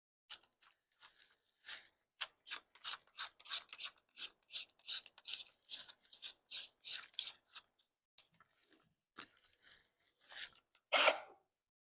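A screw being turned by hand into a pre-drilled hole in wood: a run of short scraping strokes, about two or three a second, thinning out and ending with one louder scrape near the end.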